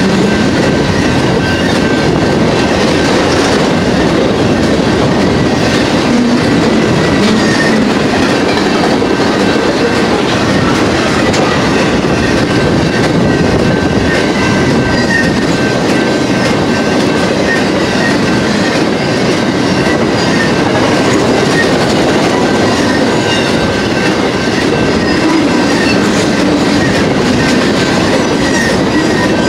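Intermodal freight cars of a BNSF train rolling steadily past: a loud, continuous rumble and rattle of steel wheels on rail, with the clicking of wheels over rail joints and a thin steady high tone above it.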